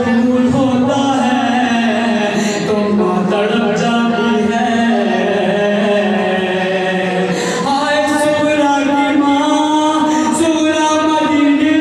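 A group of men chanting a noha, a Shia lament sung without instruments, in long held lines. The pitch steps up about seven and a half seconds in.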